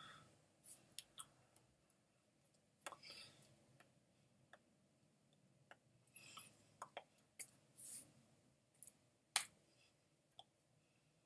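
Near silence: room tone with scattered faint clicks and ticks.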